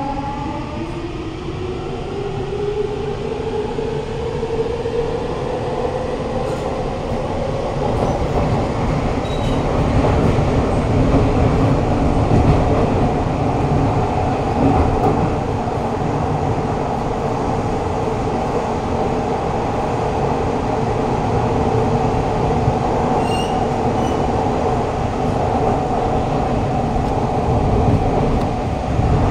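Siemens C651 metro train heard from inside a carriage: the traction motors whine in rising pitch over the first several seconds as the train gathers speed. After that comes a steady rumble of wheels on the rails at running speed.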